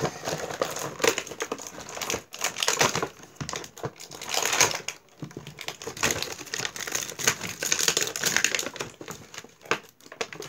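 Toy packaging crinkling and rustling in irregular handfuls, with sharp clicks and rattles, as small toys are unpacked from it.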